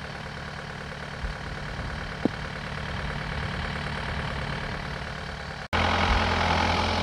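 Tractor engine running steadily. About five and a half seconds in the sound cuts off abruptly and a louder steady engine hum follows.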